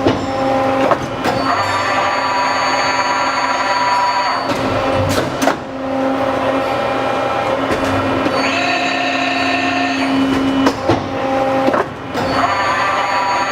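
Horn Metric 80TMRE-RBE hybrid CNC tube bender running its bending cycle: a steady hum under motor whines that ramp up and die away, with sharp clicks and clunks. The pattern repeats about every seven seconds.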